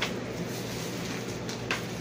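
Steady low room hum with two brief light clicks, one at the very start and one near the end.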